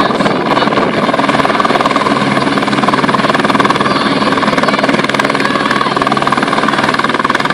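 Light helicopter's engine and main rotor running steadily, a fast, even blade chop over a steady low hum.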